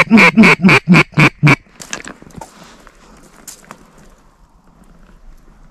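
A rapid series of about six loud mallard-style quacks, about four a second, stopping about a second and a half in.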